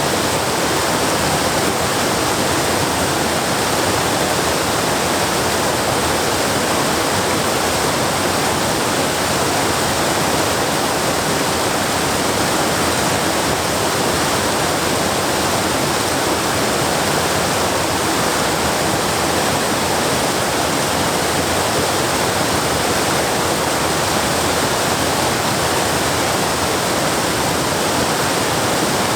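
Waterfall water pouring and rushing over rock in a steady, unbroken roar of spray.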